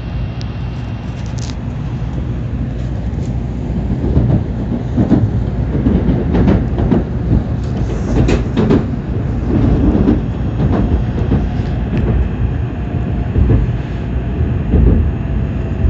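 Tokaido Shinkansen train running at speed: a steady low rumble, with irregular knocks and clatter of the wheels on the track from about four seconds in.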